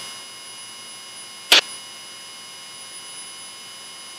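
Steady hiss with faint, thin, high electrical whine tones over the Piper Cherokee 140's cockpit audio, broken by one sharp click about one and a half seconds in.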